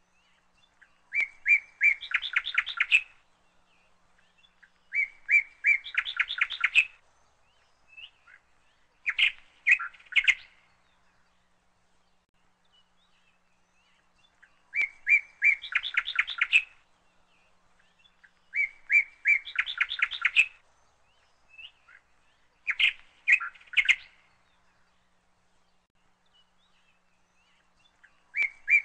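A songbird singing the same short phrase over and over, about every four seconds: a few separate high notes followed by a quick chattering trill.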